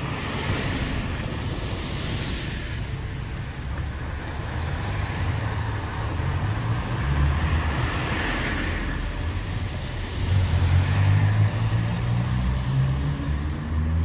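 Road traffic on a city street: cars passing, their tyre hiss swelling about a second in and again about eight seconds in, over a steady low rumble that grows louder near the end.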